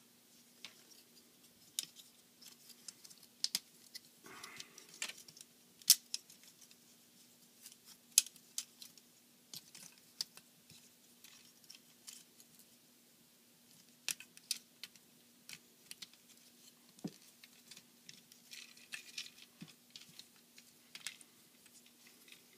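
Irregular small plastic clicks and taps from an action figure being handled and transformed, its plastic parts clicking and knocking as they are moved into place, over a faint steady hum.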